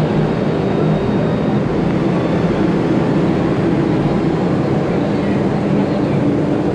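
Steady low rumble and hum of a ferry's machinery, heard inside its enclosed steel vehicle deck.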